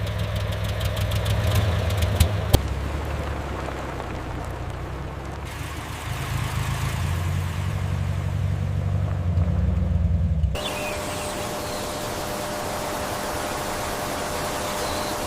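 Military jeep's engine idling with small shifts in its note. About two-thirds of the way in it cuts off abruptly to a quieter steady hiss with a faint hum.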